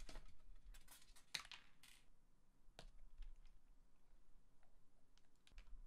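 Faint clicks and scrapes of an Alienware gaming laptop's plastic bottom cover being lifted off and handled, bunched in the first two seconds, then a few scattered light ticks as fingers work inside the laptop.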